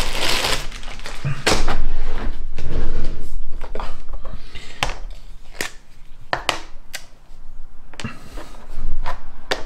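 Small hobby tools and parts being picked up and set down on a workbench: a brief rustle at the start, then irregular sharp clicks and knocks.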